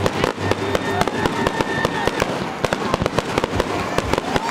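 A fireworks display going off in a rapid string of sharp bangs and crackles, several a second.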